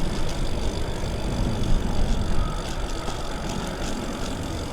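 Wind rumble on a windscreened clip-on microphone riding on a moving bicycle, a steady low buffeting with some rolling noise.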